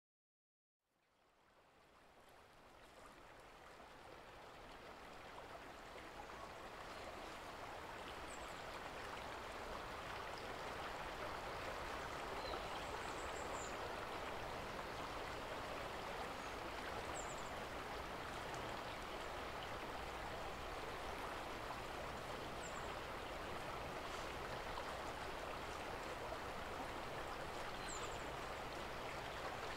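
River water flowing: a steady, even rushing that fades in from silence over the first several seconds and then holds level. A few faint, short high chirps come through it now and then.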